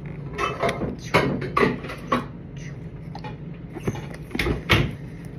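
Earbuds box being worked open by hand: rustling, scraping and clicking of packaging, in a cluster over the first two seconds and again later, ending in two sharp knocks about four and a half seconds in.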